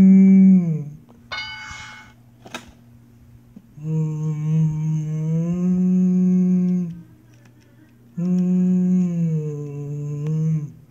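A person humming long, held notes, in three phrases with pauses between them, the pitch stepping between two notes within each phrase. A brief rustle and a single click come in the first pause.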